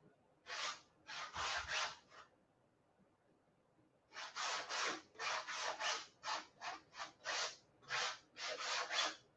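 Small palette knife scraping Indian yellow paint across a small canvas. A few rasping strokes come first, then a pause of about two seconds, then a run of a dozen or so quick strokes.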